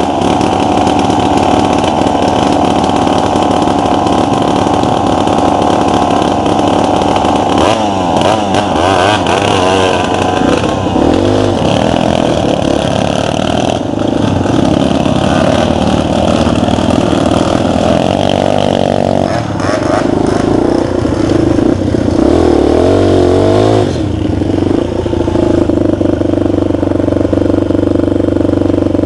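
Romet CRS 125 dirt bike's 125 cc single-cylinder four-stroke engine running under way off-road, rising and falling in pitch as it is revved through the throttle and gears. Over the last few seconds it settles to a steadier note.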